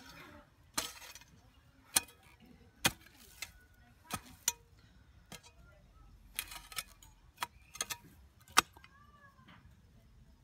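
A hand tool striking and chopping into dry, hard-packed earth while digging: about a dozen sharp knocks at uneven intervals, some in quick pairs.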